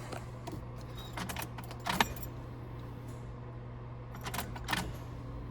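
Car keys jangling and clicking in a few short rattles as the ignition key of the 1995 Ford Mustang GT is handled, over a steady low hum.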